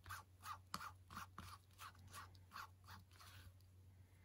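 Wooden craft stick stirring Cloud Whip mixed media paste with blue colouring on a craft sheet: faint, quick strokes at about four a second, thinning out near the end.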